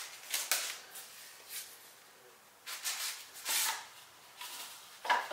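Plastic packaging rustling and crinkling in a few short spells as a sharpening stone is unwrapped and handled.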